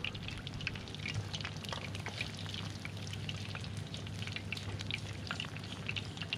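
Battered Spanish mackerel strips deep-frying in a pan of hot oil: a steady sizzle thick with small crackles and pops.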